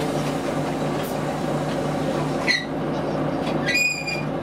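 Volvo B9TL double-decker bus's six-cylinder diesel engine running steadily, heard from inside the passenger saloon with interior rattle. A brief high chirp sounds about halfway through, and a short high ringing tone near the end.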